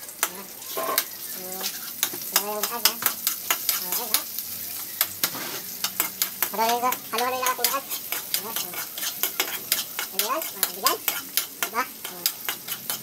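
Onions sizzling in hot oil in a wok as a metal spoon stirs them, scraping and clicking against the pan many times.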